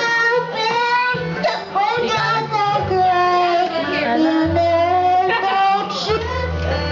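A three-year-old child singing a song, the singing interrupted now and then by hiccups, over backing music with held bass notes.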